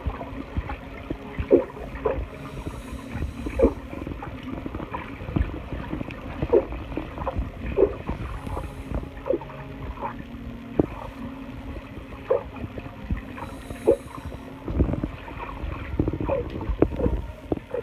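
Scuba exhaust bubbles gurgling, heard underwater, in short bubbly blips about once a second. A steady low hum runs underneath, and a brief hiss comes every five to six seconds.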